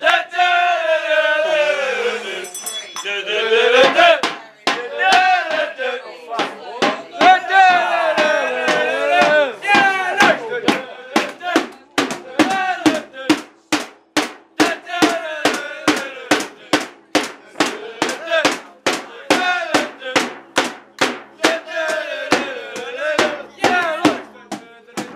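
Small group of football supporters chanting and singing together, with sharp hits keeping a steady beat about twice a second.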